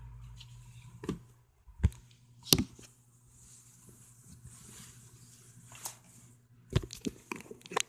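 Handling noise from a camera being picked up and moved: a series of sharp knocks and bumps, the loudest two close together about two seconds in, with rubbing and scraping between them and a cluster of quicker taps near the end.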